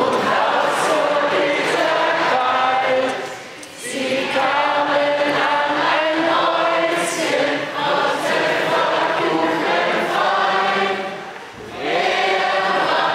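Live singing through a hall's sound system: a sung melody in long phrases, broken by two short pauses.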